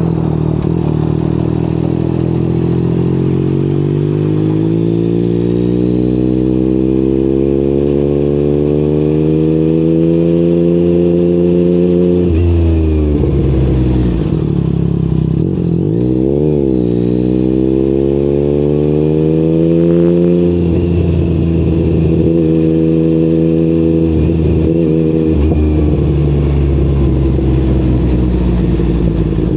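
Yamaha MT-09's crossplane three-cylinder engine through an Akrapovič exhaust, pulling under load with its pitch climbing slowly for about twelve seconds. The pitch then drops sharply, dips and rises again around the middle, and holds fairly steady with small throttle changes to the end.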